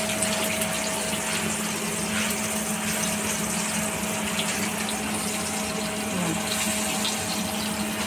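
Mandeli (golden anchovy) fish in a rice-flour coating sizzling steadily as they shallow-fry in hot oil in a pan, with light crackles, over a steady low hum.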